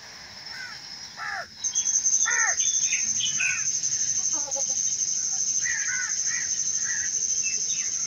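Birds calling outdoors in short, arching chirps and caws, joined about a second and a half in by a steady, high, fast-pulsing insect trill that carries on.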